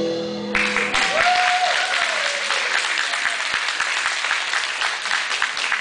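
Music stops about half a second in and an audience breaks into steady applause, many hands clapping.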